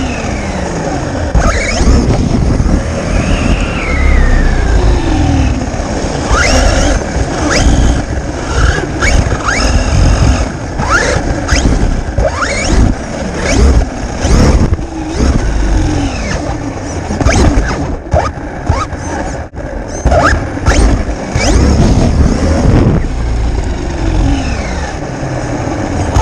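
Traxxas RC truck's electric motor and drivetrain whining up and down in pitch as it speeds up and slows, heard from a camera mounted on the truck. Tyres run over concrete, with frequent sharp knocks and clatters from bumps along the way.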